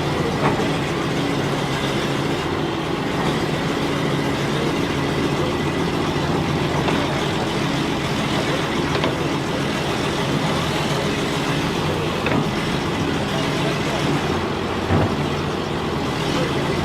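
The engine of a 1963 Landsverk L58 BR cable backhoe running steadily at work, with a few short knocks from the machine and a louder clunk about fifteen seconds in.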